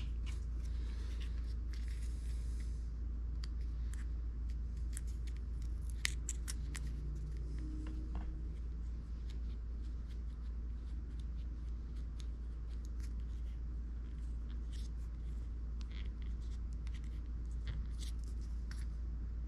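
Small plastic clicks and light rustles as fingers handle and press the housing of a Sena SMH5 Bluetooth headset, with a denser rustle in the first few seconds. A steady low hum runs underneath.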